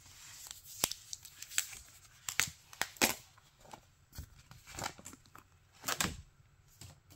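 Paper wrapper being pulled and torn off a new folding phone: irregular tearing and crinkling crackles that die away near the end.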